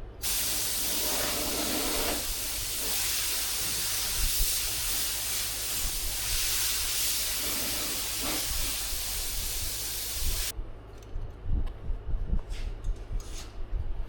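A steady spraying hiss of pressurized gas lasting about ten seconds, starting and cutting off abruptly, followed by a few light clicks and knocks.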